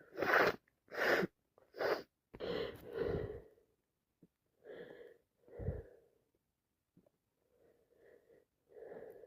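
Heavy, noisy breathing and sniffing from a person with a cold and allergies in the middle of a sneezing fit: five sharp bursts in the first few seconds, the first the loudest and each weaker, then softer, slower breaths.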